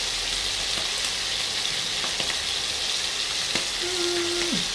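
Cubes of beef searing undisturbed in foaming butter and canola oil in a pan on an induction burner: a steady sizzle, with the meat starting to form a crust.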